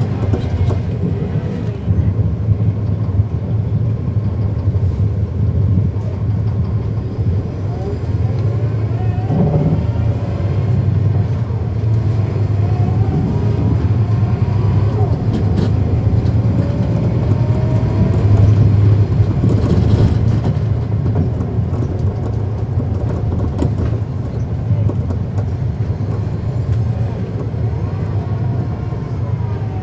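Cummins ISL9 inline-six diesel of a 2010 NABI 40-SFW transit bus heard from on board while under way: a steady, deep engine drone, with faint whines gliding up in pitch through the middle and the engine loudest a little past halfway.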